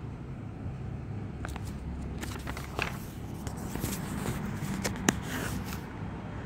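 Steady low background rumble with scattered light clicks and knocks, the sharpest about five seconds in.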